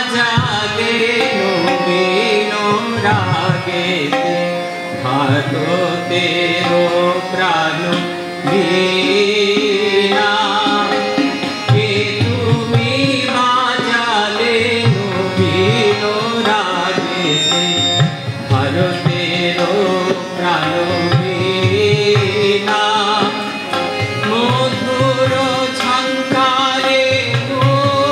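A man singing a song while playing a harmonium, the voice gliding over the harmonium's held reed notes.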